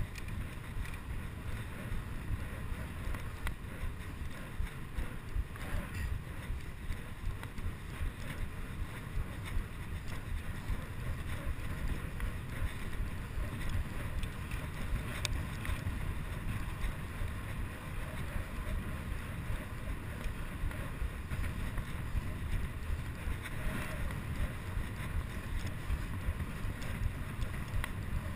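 Wind buffeting the microphone of a chest-mounted GoPro HD2 as a bicycle is ridden fast along a paved cycle path: a steady low rumble that gusts unevenly, with the bike's rolling noise underneath.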